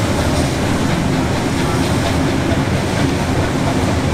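Steam-hauled passenger train running along the line, heard from on board: a steady, loud rumble of the carriage rolling on the rails.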